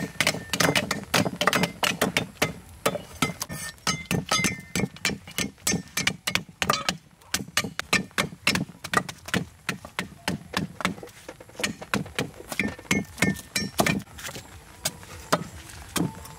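Rapid, irregular knocks and clicks of kitchen work, several a second, pausing briefly about halfway and thinning out near the end.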